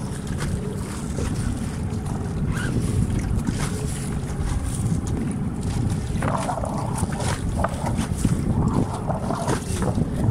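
Wind buffeting the microphone with water splashing against the hull of a small sailing dinghy under way, in a steady rumble with scattered short knocks.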